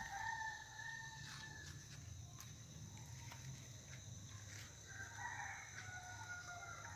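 A rooster crows twice: one long crow at the start and another about five seconds in, over a steady high drone of insects.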